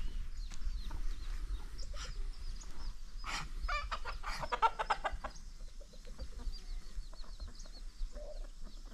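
Chickens clucking, with a louder run of quick calls about three to five seconds in, over faint high chirps.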